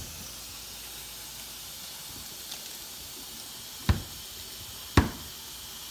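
Parmesan being grated on a fine hand grater over a steady hiss, with two sharp knocks of the grater against the plastic cutting board about a second apart near the end.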